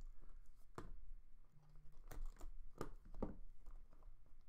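Cardboard trading-card box being handled and opened by hand: several short scrapes and taps as a Panini National Treasures box is slid from its stack and its lid lifted off.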